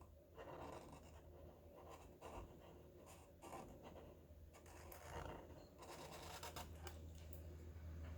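Faint strokes of a black Sharpie marker drawing on paper, in short irregular scratches, over a low steady hum.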